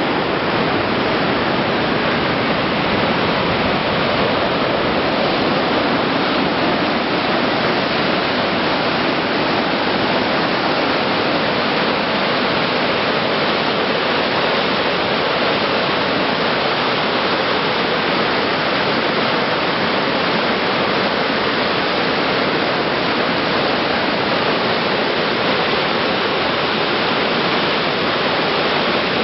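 The Yuba River in full flood, muddy whitewater churning and crashing through rapids below a bridge, making a steady, loud rush of water.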